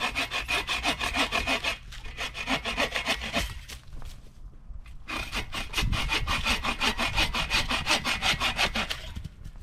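Hand saw cutting through wood with rapid back-and-forth strokes, about five a second, in two runs with a short pause about halfway through.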